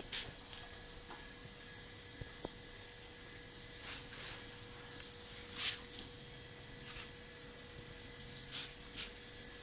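Faint steady hum on one pitch, with a few short hissing rustles about four, six and nine seconds in.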